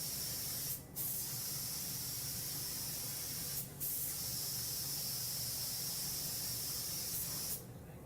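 Spray gun spraying glaze onto a ceramic stove-tile blank. It gives a steady hiss in three bursts, with two brief breaks, and stops near the end.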